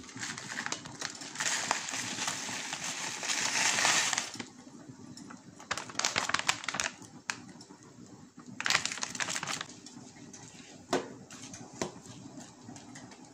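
A crinkly plastic packet of lachha semai vermicelli rustling in bursts as it is handled and shaken out into a pot of milk. Near the end a metal spoon taps twice against the pot.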